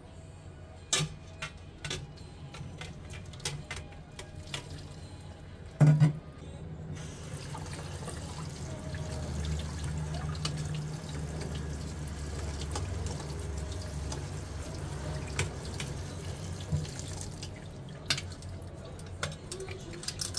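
A fork clinks against a steel pot and a metal colander in a stainless-steel sink, with a loud metal knock about six seconds in. Then a kitchen tap runs steadily, rinsing noodles in the colander, with a few more clinks.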